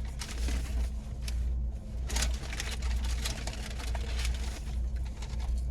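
A paper takeout bag rustling and crinkling in several short spells as a hand digs into it, over a steady low hum of the car's engine idling.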